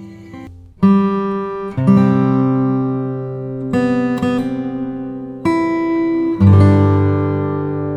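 Background music: an acoustic guitar strums chords, a new chord struck every second or two and left to ring out.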